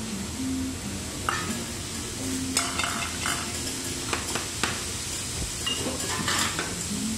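Food sizzling on a hot teppanyaki griddle, with scattered sharp clinks of metal utensils against the steel plate.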